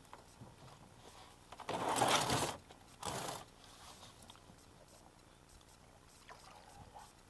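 Two bursts of scraping noise, the first about two seconds in and lasting most of a second, the second shorter a moment later, as the small boat is hauled in by its rope and its hull scrapes.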